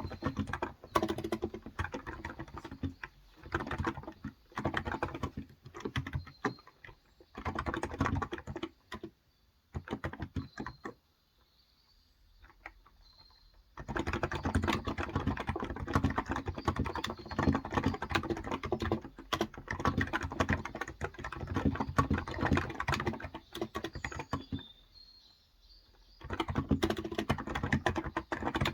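Typing in quick bursts on a Cox Endeavor electro-capacitive (non-contact) keyboard with light 35 g keys, pausing for a few seconds about nine seconds in and again near the end. Faint birds chirp in the background.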